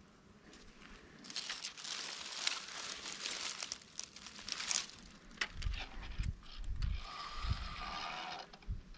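Rustling, crinkling handling noise with many sharp clicks, starting about a second in. Later come a few dull low thumps.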